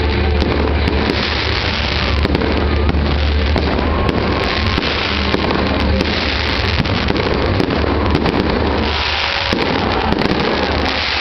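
Aerial fireworks exploding in quick succession: a continuous, loud stream of bangs and crackling.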